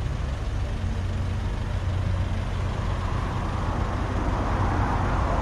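Street traffic: a steady low engine rumble, with a passing vehicle's noise swelling in the second half.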